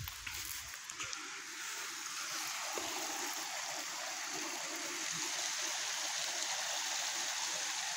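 Mountain stream flowing, a steady rushing of water that grows a little louder about two seconds in and then holds.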